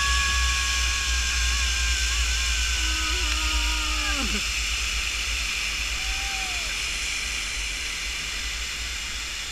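Zip-line trolley pulley whining along the steel cable, its pitch sinking slowly as it loses speed, then dying away about four seconds in. Wind rumbles on the microphone and a river rushes below.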